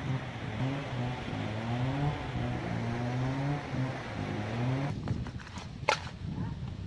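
A motor vehicle engine running, its pitch rising again and again as it accelerates. About five seconds in it fades, and a few sharp metallic clicks follow: a spoon knocking against a steel mixing bowl.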